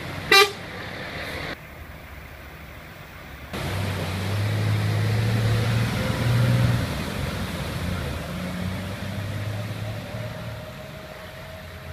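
A short vehicle horn toot about half a second in. Then a heavy truck's engine runs with a low, steady rumble as it drives through floodwater, over a constant hiss.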